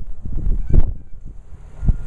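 Geese honking, a few short calls, the loudest about three-quarters of a second in, over wind rumbling on the microphone.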